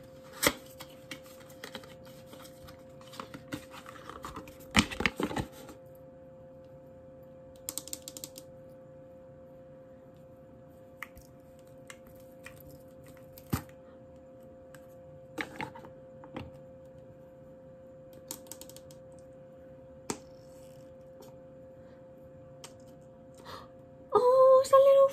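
Cardboard box and plastic bottle being handled and opened: scattered taps, clicks and short crinkling rustles, the busiest a few seconds in, then sparse clicks as the cap is worked off the bottle. A steady faint hum runs underneath.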